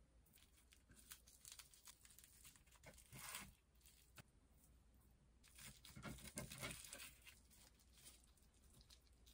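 Faint crinkling and rustling of dried seaweed sheets being rolled by hand around glass noodles, in short bouts.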